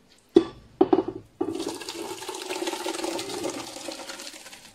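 Thick blended vegetable purée (zucchini and carrot for squash caviar) being poured and tipped into a kazan, with a few knocks of the pot first. This is followed by about three seconds of sloshing, splashing pour that tails off.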